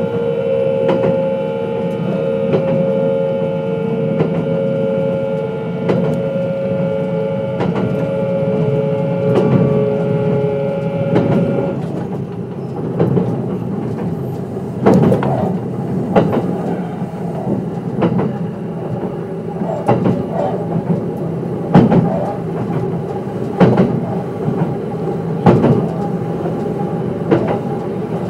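Interior running sound of a Kintetsu 22600 series train with Mitsubishi IGBT-VVVF traction. A steady whine from the inverter and motors, at constant pitch, cuts off about twelve seconds in as power is shut off. After that the train coasts, with wheel rumble and the rhythmic clack of wheels over rail joints roughly every two seconds, often as double knocks.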